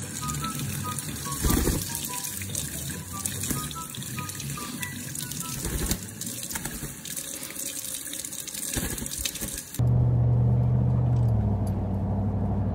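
Running, splashing water, an even rush like a tap or shower. About ten seconds in it cuts off suddenly and a steady low hum takes over.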